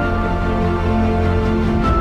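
Background music with a heavy, sustained bass and held tones, changing chord near the end.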